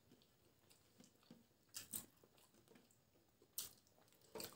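Near silence with faint mouth sounds of someone chewing boiled egg: a few soft smacks about two seconds in, at three and a half seconds and near the end.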